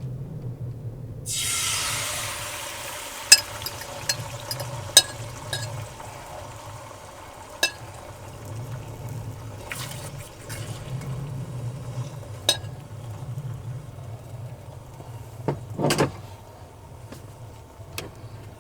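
Beaten eggs poured into a hot frying pan, sizzling as they hit about a second in, then settling to a quieter steady sizzle. A utensil clicks against the pan now and then, over a low steady hum.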